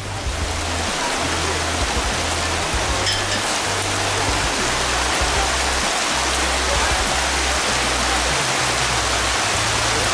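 A steady rushing, hissing noise, with the low bass notes of music underneath.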